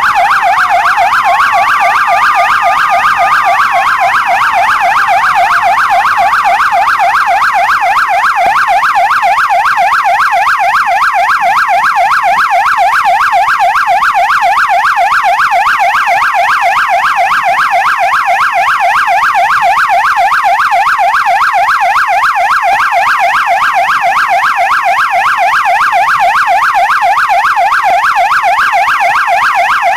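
Police car siren sounding a fast, steady warble that rises and falls several times a second. In the first few seconds a second, slower wail overlaps it, gliding down, back up and down again before it drops out.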